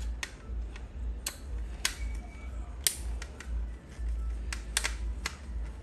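Sharp metal clicks, about eight at uneven intervals, from a Phillips screwdriver working small screws out of a router's circuit board. A steady low hum runs beneath.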